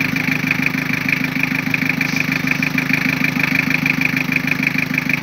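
Toyota 3L four-cylinder diesel engine idling steadily, with an even, rhythmic diesel clatter.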